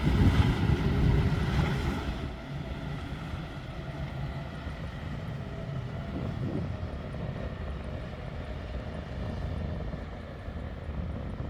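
Motorboat engine running, louder for about the first two seconds, then dropping to a quieter steady drone.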